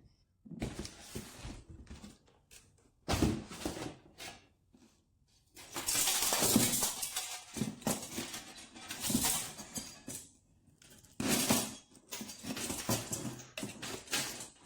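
Cardboard packaging being handled and cut open: irregular rustling, scraping and knocks, in bursts with brief pauses.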